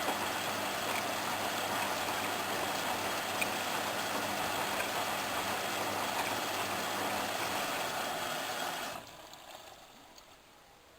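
Hoover Inter@ct washing machine running, its drum and motor (a motor taken from a Candy Aliseè) making a steady mechanical whir. About nine seconds in the sound drops sharply and then dies away.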